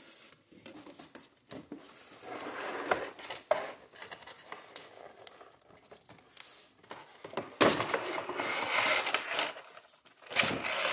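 Cardboard box flap and plastic packaging tray rustling, scraping and crinkling as they are handled and the tray is slid out, in several spells, the longest and loudest a little past the middle.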